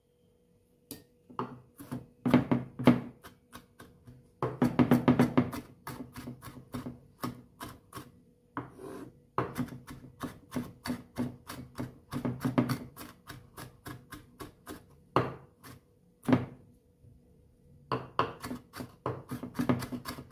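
Chef's knife mincing garlic on a wooden cutting board: quick flurries of sharp knife strikes with short pauses between, starting about a second in.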